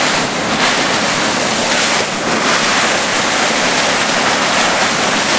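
Loud, steady rush of wind and breaking water from a boat under way at speed on open sea, with wind blasting the microphone.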